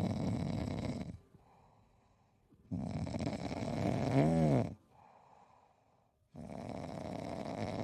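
A sleeping pet snoring: three long snores, about one every three and a half seconds, the middle one ending in a short squeaky whistle.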